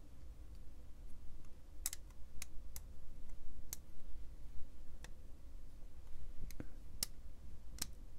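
Light metal clicks of a partly assembled Demko AD20.5 folding knife, its blade and steel liners being handled and seated around the pivot. Several scattered clicks, irregularly spaced.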